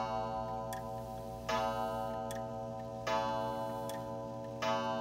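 Antique Lenzkirch Black Forest wall clock striking seven o'clock. Ringing strikes come about every second and a half, three of them plus the tail of one just before, each sustaining and fading slowly, with the pendulum's faint ticking between them.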